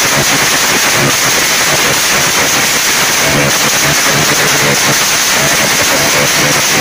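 Ground firework fountain spraying sparks, a dense, steady crackling and hissing.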